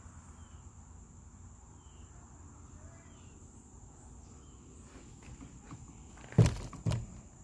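Quiet footsteps with scuffing movement, then two heavy thudding steps near the end, over a faint steady high whine.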